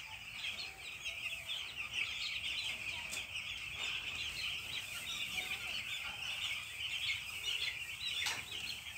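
A large flock of nine-day-old poultry chicks peeping together, a dense, unbroken chorus of many overlapping high cheeps.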